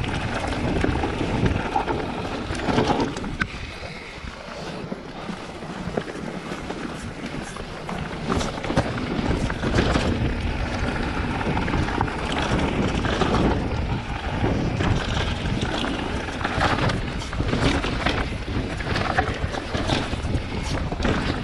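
Mountain bike riding down a rough dirt trail: wind rushing over the microphone and tyres on loose dirt and rock, with frequent knocks and rattles from the bike over bumps. It eases a little for a couple of seconds near the start.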